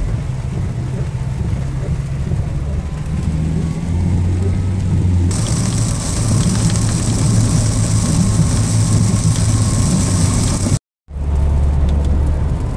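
Road and engine noise inside a car's cabin on a highway in heavy rain: a steady low rumble under a hiss of rain and tyre spray on the car. About five seconds in the hiss turns much stronger, and near the end the sound drops out for a moment before the rumble returns.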